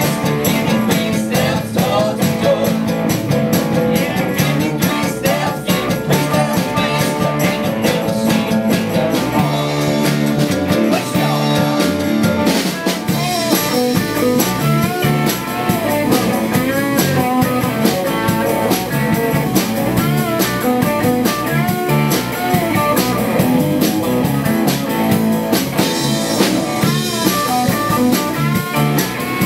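Live band playing a song on drums, bass, acoustic and electric guitars. Over the second half an electric guitar plays a lead with notes that bend in pitch.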